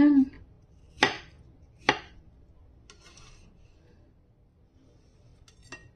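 Kitchen knife slicing through a dragon fruit and knocking twice on a wooden cutting board, sharp knocks a little under a second apart, then faint handling noise.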